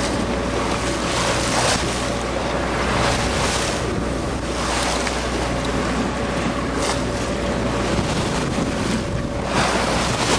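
Sea water rushing and splashing along the hull of a sailboat under way, with wind buffeting the microphone. Louder surges of spray come every couple of seconds, over a steady low hum.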